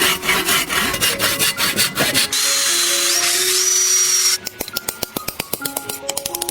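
Rapid scraping strokes of a tool on metal. About two seconds in, a power tool takes over, running with a high whine that steps up in pitch and cuts off suddenly near the end. Fast light ticking follows, all over background music.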